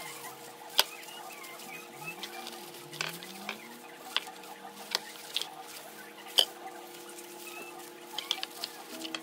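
Irregular sharp clicks and taps, about a dozen, as a knife and plastic-gloved hands pull apart and trim ripe jackfruit on a plate.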